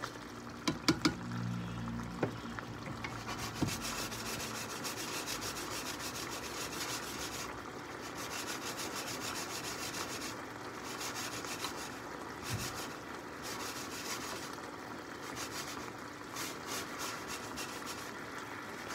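Mushroom masala sauce simmering in a large frying pan, a steady hiss that swells and fades, with a few clicks of a spoon against the pan in the first seconds.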